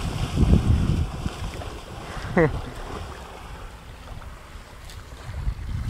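Wind buffeting the microphone over lapping sea water, heaviest in the first second and again near the end. About two and a half seconds in comes one short, wavering cry.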